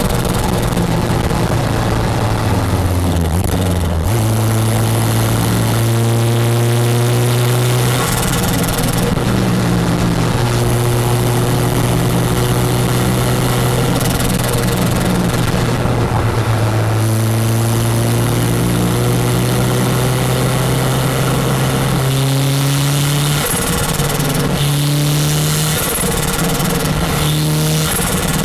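Toyota MR2 Turbo's 3S-GTE four-cylinder turbo engine pulling hard through the gears. The pitch climbs in each gear and drops at several upshifts.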